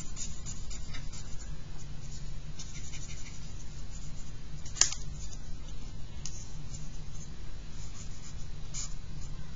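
Charcoal pencil scratching and rubbing on paper in many short strokes, over a steady low hum, with one sharp click about halfway through.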